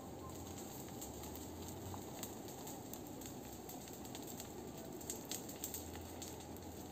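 Brush fire burning, giving faint crackles and pops over a steady rushing background, with a cluster of sharper pops about five seconds in.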